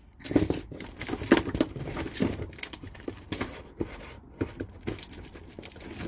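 Packaging rustling and crinkling as items are rummaged out of an unboxing box, with irregular clicks and knocks of small items being handled.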